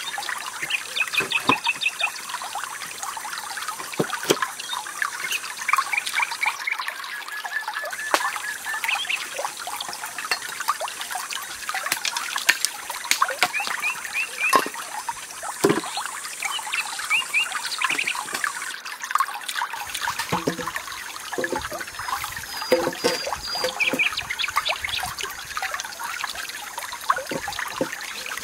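Water trickling steadily, with birds chirping in short trills now and then and scattered knocks of bamboo poles being handled and set down.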